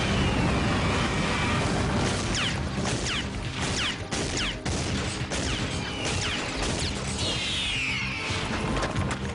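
Dramatic action music under repeated crashes and impacts, with several high cries sliding down in pitch, the longest near the end.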